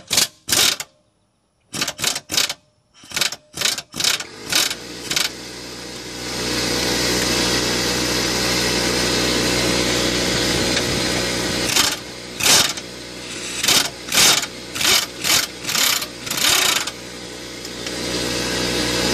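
Pneumatic impact wrench firing in a string of short bursts to break loose a lower control arm bolt, with a second run of bursts later. About six seconds in, an air compressor starts up and runs steadily underneath.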